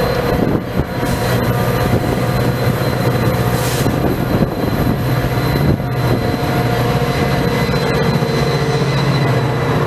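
Metra EMD F40PH diesel locomotive passing close by at the head of a bilevel commuter train: a steady engine hum with wheel-and-rail noise and a few sharp clacks.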